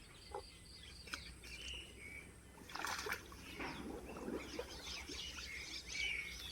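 Birds chirping repeatedly in short calls, with a brief rush of noise about three seconds in followed by a second of scuffling.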